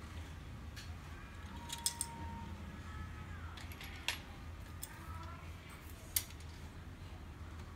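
Sharp clicks and light knocks of plastic printer parts being handled as a laser printer's fuser unit is taken apart, a few scattered over several seconds, with the loudest near the end, over a low steady hum.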